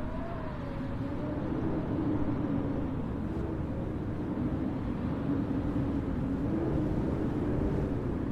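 Snowstorm city street ambience: a steady low rumble with a hum that wavers slowly in pitch.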